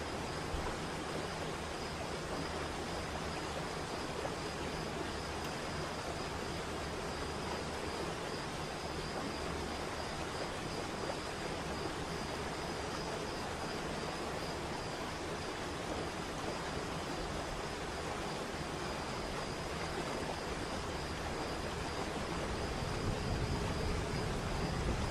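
Waterfall rushing steadily, an even hiss of falling water, with a faint steady high tone running through it. A low rumble builds near the end.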